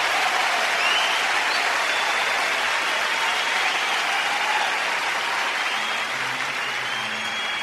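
Steady hiss of moving water around a kayak on a river, with a few faint bird chirps over it.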